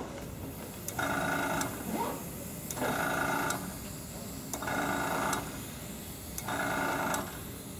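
Small airbrush compressor humming in short bursts, four times about two seconds apart.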